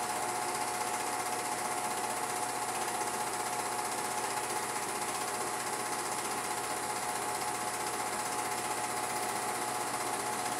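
Film projector running: a steady, unchanging mechanical whir with a constant hum tone.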